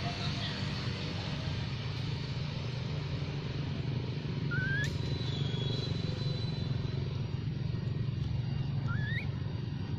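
Infant macaque giving a few short, thin rising squeaks, a pair about halfway through and one more near the end, over a steady low rumble.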